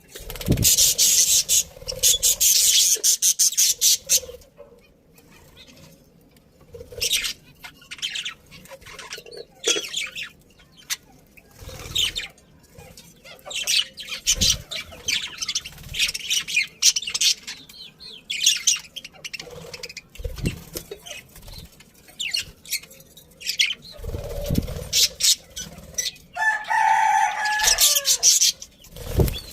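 A flock of budgerigars chattering in repeated bursts of rapid high chirps, with short pauses between bursts and a few soft thumps. Near the end a lower, drawn-out call of about two seconds stands out.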